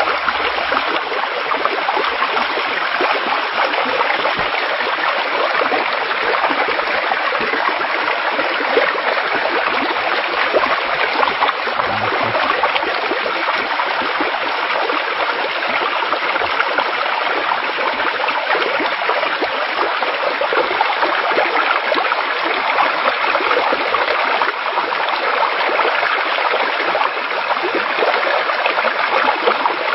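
Floodwater rushing steadily through a breach under a railway track, washing out the ballast and embankment: a loud, even torrent.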